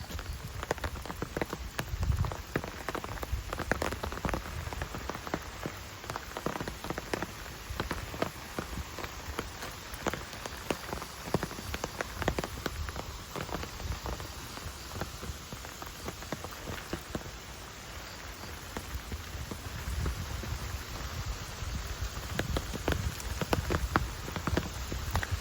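Rain falling in a forest, with many drops pattering irregularly. Low thuds come about two seconds in and again near the end.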